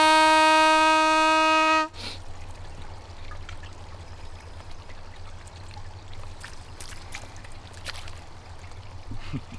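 A hand-held call blown in one long, steady, horn-like note that cuts off about two seconds in, blown to call fish. After it comes a faint trickle of running water.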